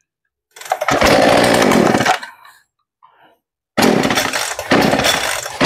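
Husqvarna two-stroke chainsaw engine being started and run in two short bursts. It runs for about a second and a half and dies away, then starts again abruptly about a second and a half later and keeps running.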